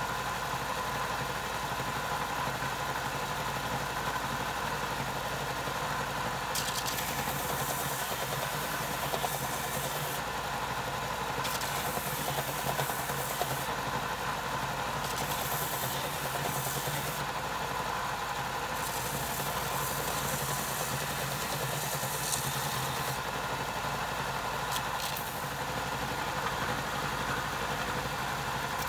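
Ryobi bench belt-and-disc sander running with a steady motor hum. A rough sanding hiss comes and goes in passes of a few seconds as a wooden mallet head is pressed against the moving belt and then the disc.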